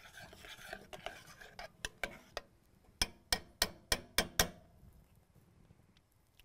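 A spoon stirring thick chili sauce in a saucepan, then a quick run of about seven sharp clinks of the spoon against the pan.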